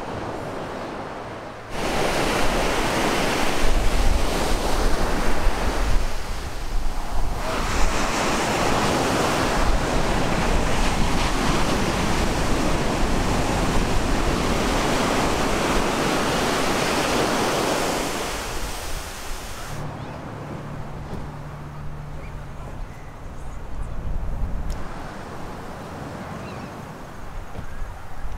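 Ocean surf breaking and washing up a sandy beach, with wind gusting on the microphone. The surf is louder from about two seconds in and drops back near the last third.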